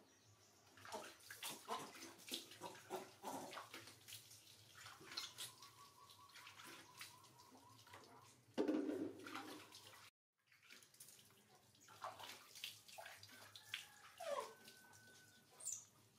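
Water splashing and dripping as a soapy newborn baby monkey is washed by hand over a plastic basin, with a louder splash about eight and a half seconds in.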